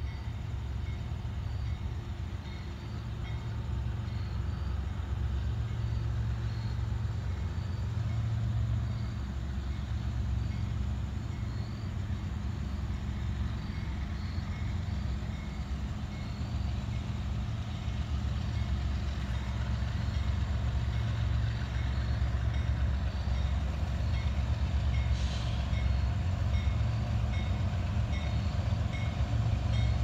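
Freight train's autorack cars rolling past with a steady low rumble, with a faint high ding repeating about once a second and a couple of brief high squeals in the second half.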